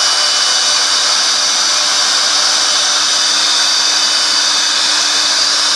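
Small electric motor appliance running steadily at full speed, a whine over a rush of noise, used to spin a fidget spinner fast.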